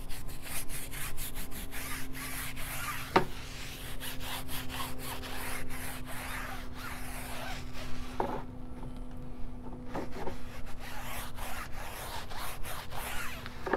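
Stiff-bristled tire brush scrubbing a rubber tire sidewall in quick, repeated strokes, cleaning it with a tire and rubber cleaner.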